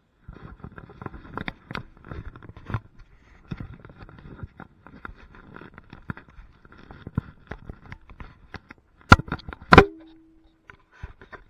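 Wooden pieces and tools being handled in woodworking, clattering and knocking irregularly. Two sharp, loud knocks come near the end, the second ringing briefly.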